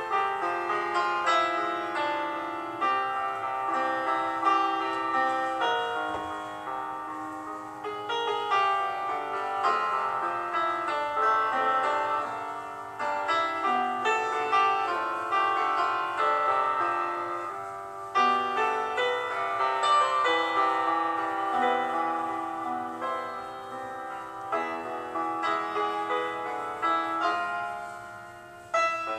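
Background piano music: a melody of many separate notes played steadily throughout.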